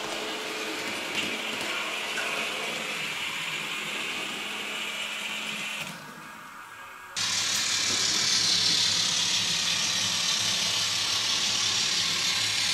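Sound-equipped N scale diesel locomotives running on track, their decoder engine sound mixed with motor and wheel noise. First comes a Bachmann P42; after a short quieter gap about six seconds in, a louder, hissier run starts about seven seconds in from an Atlas Alco switcher with an ESU sound decoder.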